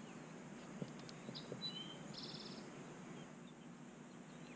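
Faint songbird calls over still-lake quiet: a few short whistled chirps and a brief quick trill a little after two seconds in. A soft knock just under a second in.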